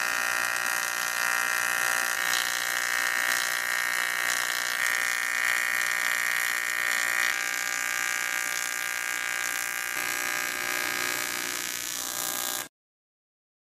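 AC TIG welding arc on 3 mm aluminium at 130 A and 60 Hz AC, giving a steady electric buzz that shifts slightly in tone a few times. It cuts off suddenly about a second before the end.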